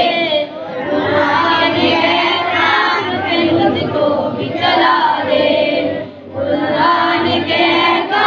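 A boy's voice singing an Islamic prayer chant (dua), with other voices singing along in chorus; the singing breaks briefly about six seconds in.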